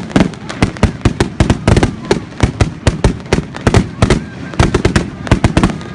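Fireworks going off in a dense barrage: rapid, overlapping sharp bangs, several a second.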